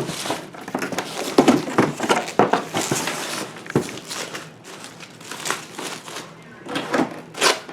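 Packaging crinkling and rustling in irregular bursts as the brewer is handled and unwrapped, loudest about a second and a half in and again near the end.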